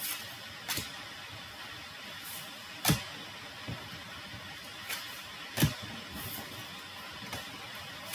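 Fortune-telling cards being handled: a few light taps and clicks, the two loudest about three and five and a half seconds in, over a steady hiss.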